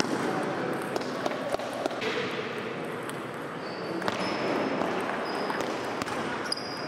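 Table tennis ball clicking off the paddles and the table during a rally: sharp, irregular ticks roughly a second or two apart.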